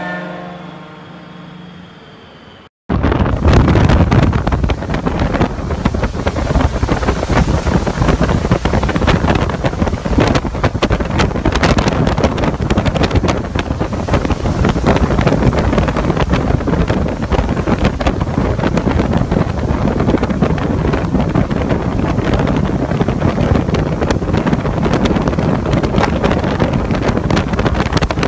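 Hurricane wind and driving rain buffeting the microphone: a loud, dense, steady rush that starts abruptly about three seconds in. Before it, a steady humming tone fades away.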